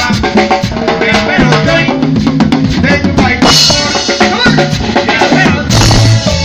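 Live cumbia band playing, with a drum kit's snare and bass drum to the fore over keyboards. Cymbal crashes come about three and a half seconds in and again near the end.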